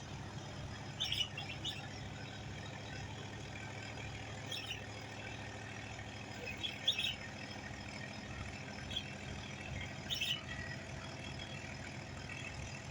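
Tugboat diesel engines towing a barge against a strong current, heard across the river as a steady low drone with a faint throb. A few short high chirps, about four of them, come from birds.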